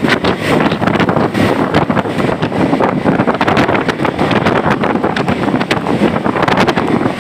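Steady noise of travel on a road in heavy rain, with dense crackling from wind buffeting the microphone; no clear engine note stands out.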